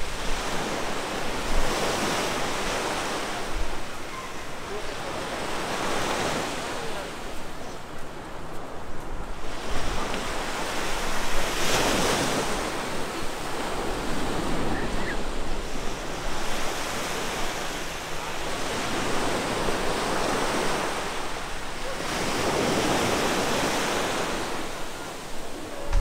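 Ocean surf washing onto the beach, several waves swelling and fading a few seconds apart, with some wind on the microphone.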